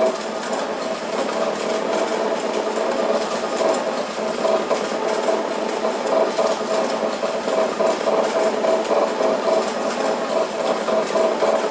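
A steady, dense electronic-mechanical drone from a live experimental sound performance on homemade devices, with a mid-pitched tone that wavers rapidly.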